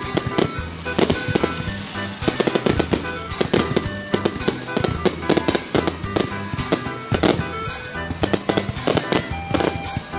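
Fireworks bursting in quick, irregular succession, many bangs and crackles overlapping, with music playing underneath.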